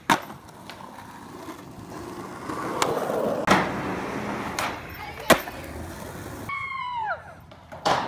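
Skateboard wheels rolling on asphalt, with sharp clacks of the board popping and landing as a skater ollies over picnic tables. Near the end comes a brief falling tone.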